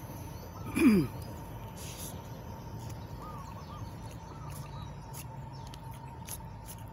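Outdoor rural ambience: a steady background hum with a faint high tone throughout. About a second in there is one short, loud call that falls in pitch, and later a few faint bird chirps and light clicks.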